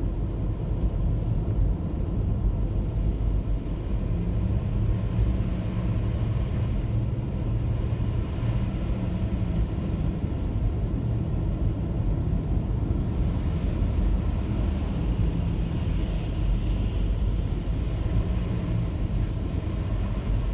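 Car driving: a steady low rumble of engine and road noise with a faint drone.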